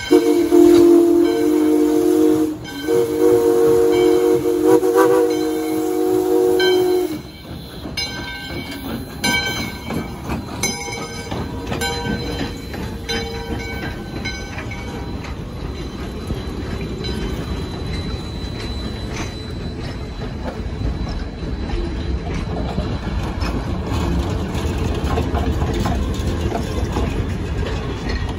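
Steam locomotive whistle sounding a chord of several notes in long blasts over the first seven seconds, then the locomotive and its passenger cars passing close by, wheels clicking over the rail joints and the running noise growing louder toward the end.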